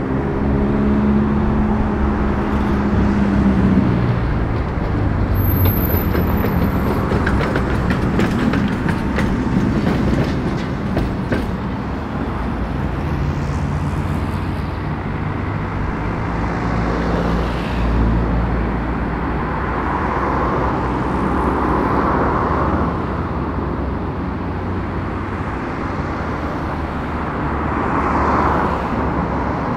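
Tatra T3 tram pulling into a stop alongside another tram, with a steady low electrical hum from the trams and a run of sharp wheel clicks over the track about six to twelve seconds in.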